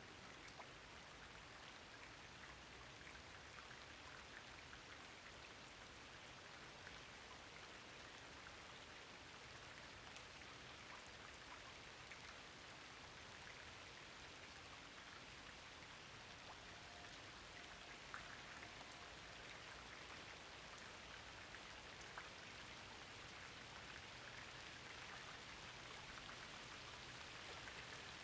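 Rain falling steadily and faintly, with the ticks of single drops scattered through the hiss.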